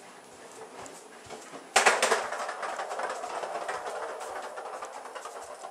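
Rubber-band powered plastic toolbox car with CD wheels on skewer axles rolling across a hard floor: a sudden clatter a little under two seconds in, then a steady rattling rumble that slowly fades as it runs on.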